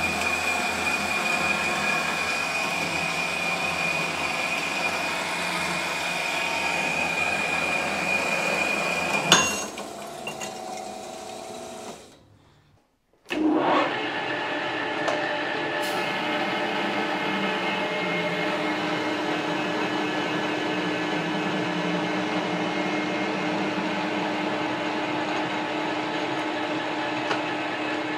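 Horizontal bandsaw cutting 1045 steel bar under coolant, a steady high whine over the running saw; about nine seconds in a sharp clank, then the saw winds down. After a short gap, a metal lathe runs steadily, facing the end of a steel bar.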